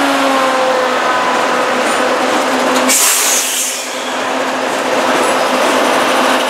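CSX diesel-electric locomotives passing close by, their engines running with a steady drone. A short hiss cuts in about three seconds in and fades within a second.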